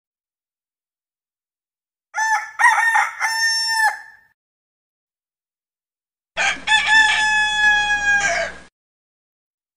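Rooster crowing twice, each crow a cock-a-doodle-doo about two seconds long that holds and then drops in pitch at the end. The first comes about two seconds in and the second about six seconds in, with complete silence before, between and after. A faint low hum sits under the second crow.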